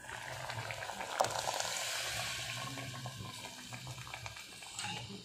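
Tomato kurma gravy bubbling on the boil in a steel pan as ground masala paste is poured into it, with a hissing that is strongest for the first couple of seconds and then eases, and a single sharp tap about a second in.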